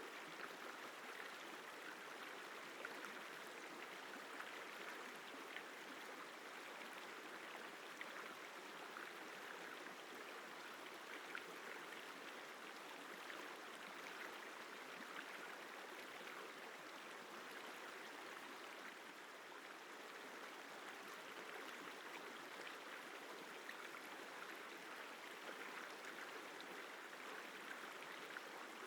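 Isar River flowing: a steady, even rush of running water.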